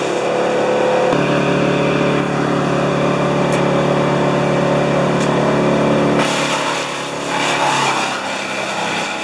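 Large engine running steadily, its note growing fuller about a second in and changing about six seconds in.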